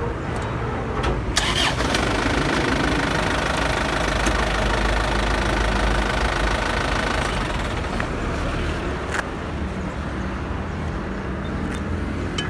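A motor vehicle's engine running close by, louder for several seconds and easing after about seven seconds, with a sharp knock about a second and a half in.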